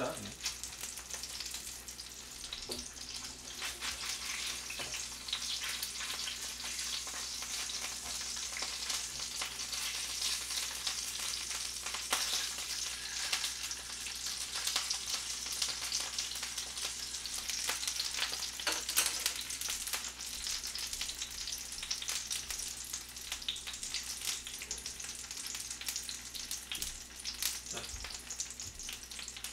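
Frozen king-size dumplings sizzling in oil in a frying pan, a steady hiss with small crackles, as they are turned with chopsticks.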